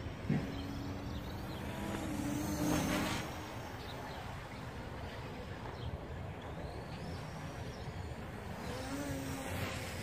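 Hubsan H501S quadcopter's brushless motors and propellers humming faintly at a distance, the pitch wavering as the throttle changes, over steady outdoor background noise. A short knock comes right at the start, and the sound swells briefly about two to three seconds in.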